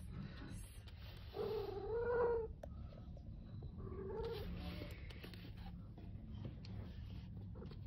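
A kitten meowing twice: a longer, louder meow about a second and a half in, then a shorter, fainter one about four seconds in.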